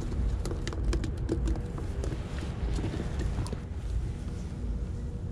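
Quick light clicks and taps from handling a spinning rod and reel, most of them in the first two seconds, then a few scattered ones, over a steady low rumble.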